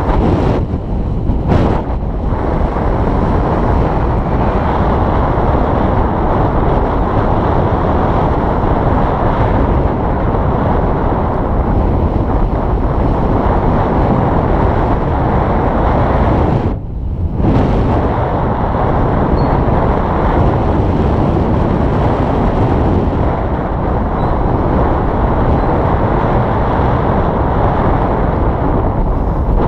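Strong wind buffeting the camera's microphone in a loud, steady rush, with a brief lull about seventeen seconds in.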